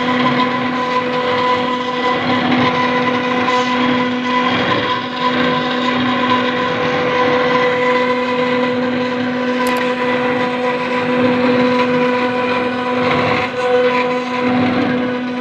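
CNC router spindle cutting into granite: a steady whine held at one pitch over rough grinding noise.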